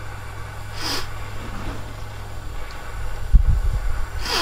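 Hand-held gas torch burning steadily with a low rumbling roar, held on a stuck brake rotor retaining screw to loosen it, with heavier rumbling bumps a little past three seconds. Two short hissing bursts, about a second in and near the end.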